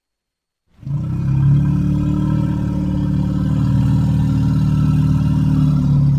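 Cartoon creature's low growl sound effect, starting about a second in and held steady with a rattling rasp.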